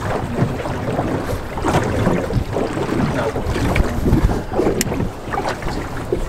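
Wind buffeting the microphone while small waves slap irregularly against the hull of a small boat on open sea water, with an occasional sharp click.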